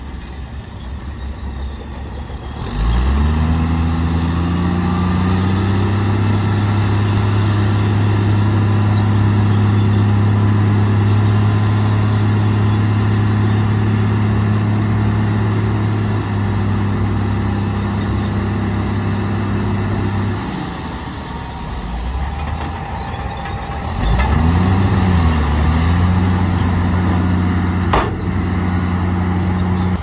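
Dongfeng Tianlong dump truck's diesel engine revving up to a steady raised speed about three seconds in, driving the hydraulic hoist as the bed tips and sand slides off. The engine drops back about twenty seconds in, revs up again with a brief swoop about twenty-four seconds in, and holds steady. A single sharp knock comes near the end.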